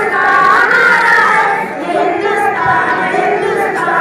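Girls singing a patriotic nazm together into a microphone, their voices holding long notes that slide up and down in pitch.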